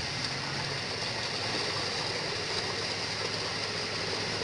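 Water splashing and churning steadily as a mass of fish thrash inside a seine net drawn tight in shallow pond water.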